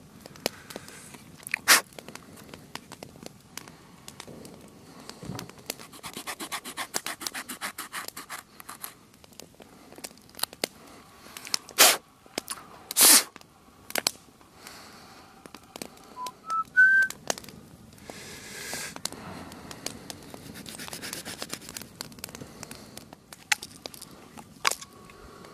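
Small saw blade of a multitool cutting through a green branch in runs of quick strokes, with scraping and several sharp clicks and knocks in between. A brief rising chirp sounds about two-thirds of the way through.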